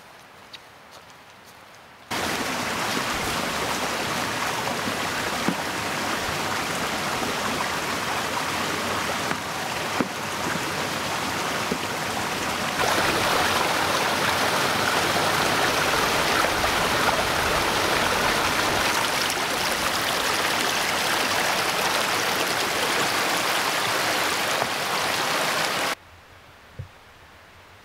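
Running water, a steady even rush. It starts suddenly about two seconds in, grows louder about halfway through, and stops abruptly near the end.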